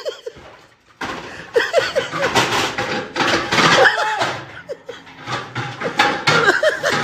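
Voices and laughter mixed with knocks and clatter from large aluminium cooking pots and lids handled on a metal shelf, starting about a second in.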